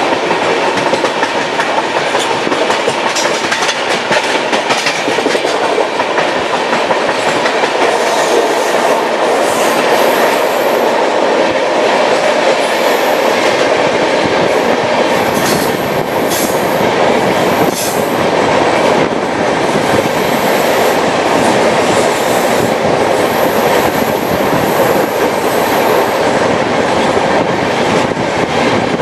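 Express passenger train running through curves, heard from an open doorway of one of its coaches: a steady rush of wheel and wind noise with occasional clacks over rail joints. A thin, high wheel squeal comes and goes several times, longest near the end, as the wheels grind on the curve.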